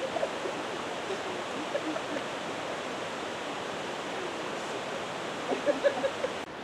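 Steady rushing of flowing water, like a mountain stream, with a few faint short sounds on top about five and a half seconds in.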